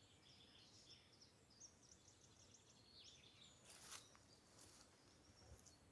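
Faint songbirds singing: scattered high chirps and a short rapid trill about two seconds in, over a quiet woodland background, with two brief soft noises a little past the middle.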